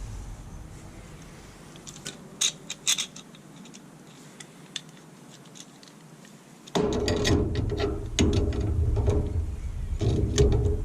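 Metal parts clicking and rattling as channel-lock pliers work a lock washer onto a washing machine's clutch and transmission shaft. Sharp clicks come a couple of seconds in, and louder, continuous scraping and clanking starts about two-thirds of the way through.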